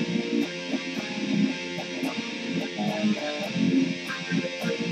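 Electric guitar being picked, playing a riff of quick single notes with a steady hiss underneath.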